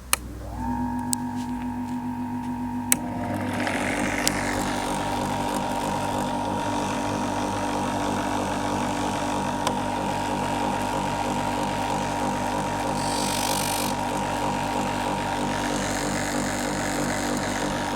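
Leather skiving machine switched on with a click, its electric motor spinning up within a second to a steady hum. About three seconds in another click comes and a denser rattling running noise joins and carries on steadily, with a brief hiss about thirteen seconds in.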